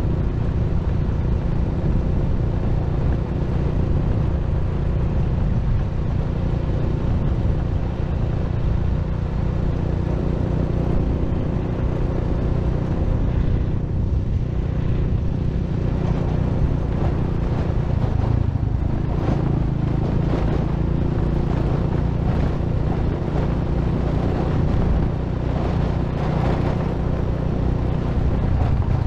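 Steady low rumble of wind buffeting the microphone and road noise from a vehicle riding along a rough concrete farm path, with more knocks and rattles in the second half.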